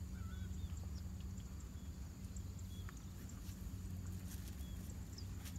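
Steady, faint engine drone of a distant motorized backpack sprayer at constant speed as it mists a rice crop, with a few faint bird chirps.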